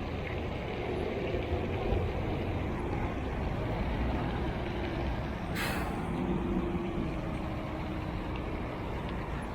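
Low, steady rumble of a heavy road vehicle going by, with a faint held tone from about five to seven seconds in and a sharp click about halfway through.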